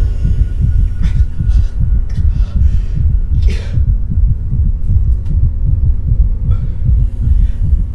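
Loud, low, heavy throbbing like a pounding heartbeat runs throughout. A man's pained gasps break in over it several times, the strongest about three and a half seconds in.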